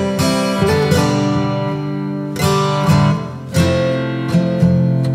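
Background music of a strummed and plucked acoustic guitar, with chords struck every second or so.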